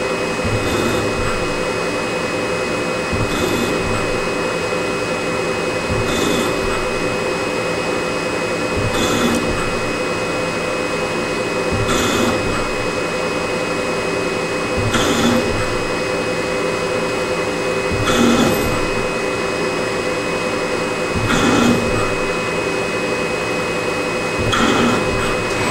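CNC lathe running a threading cycle on a 304 stainless steel part: a steady spindle and machine hum, with a short burst of cutting noise about every three seconds as the tool takes each pass of the 1 mm threads.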